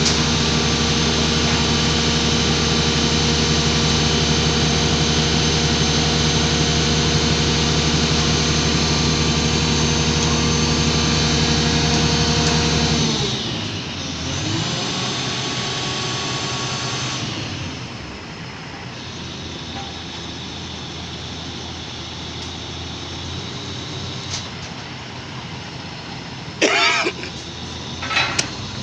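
A motor running steadily at a constant pitch, then cutting off about thirteen seconds in. A weaker run of machine sound follows for a few seconds before it goes quieter, with a few sharp knocks near the end.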